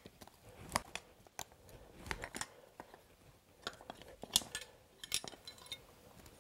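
Steel horseshoe pullers gripping and prying a worn-out steel horseshoe off a horse's hoof: scattered sharp clicks and crunches of metal on shoe and hoof.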